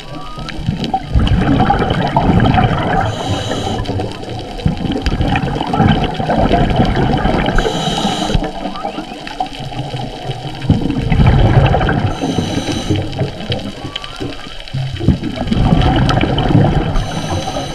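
Scuba diver breathing through a regulator underwater: a short hissing inhale followed by a long rush of exhaled bubbles, four times, about every four to five seconds. Faint whale song glides underneath.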